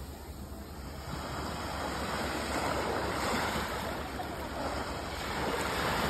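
Small waves breaking on a sandy shore and their wash running up the beach, a steady surf hiss that swells about a second in and again near the end.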